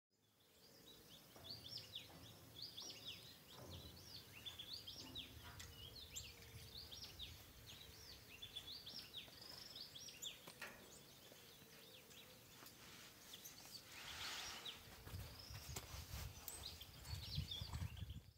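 Faint outdoor ambience of many small birds chirping in the forest, with rapid, repeated short chirps. A brief rush of noise comes about three-quarters of the way through, and a low rumble near the end is the loudest sound.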